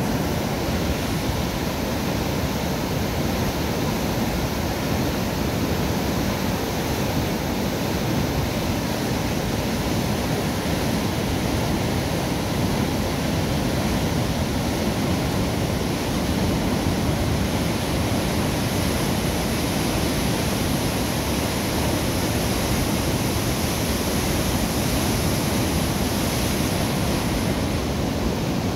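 Water rushing steadily through the sluices of a river lock gate as the lock chamber is emptied to lower a barge.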